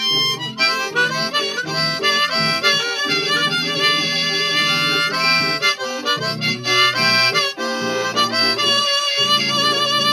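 Harmonica played in a neck rack over a slow blues keyboard accompaniment: held harmonica notes above a steady, repeating chord pattern.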